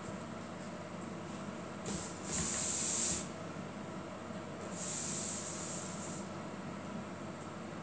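A woven seagrass lid rubbing and scraping against the rim of a woven storage basket as it is fitted on: two short, dry, high-pitched scrapes, a little over two seconds in and again about five seconds in.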